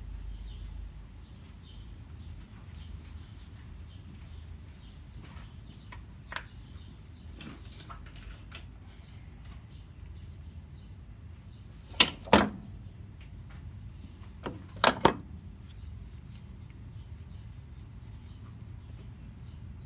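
Sporadic sharp metallic clicks and taps of a hand wrench and bolt hardware as the ignition coil bracket is unbolted from the car. There are a few faint ticks, then two loud pairs of clicks over a steady low background rumble.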